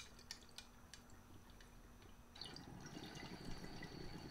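Water in a glass dual recycler dab rig bubbling faintly as a draw is pulled through it, starting about two and a half seconds in.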